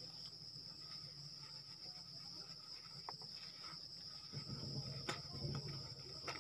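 Steady high-pitched drone of an insect chorus, unbroken throughout. A low rumble comes in about two-thirds of the way through, with a couple of sharp clicks near the end.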